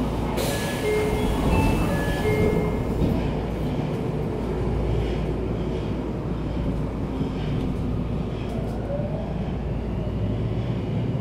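Tokyo Metro 02 series VVVF train heard from inside the car while running: a steady rumble of wheels and running gear. A few short high tones sound in the first seconds, and a faint rising inverter whine comes in near the end.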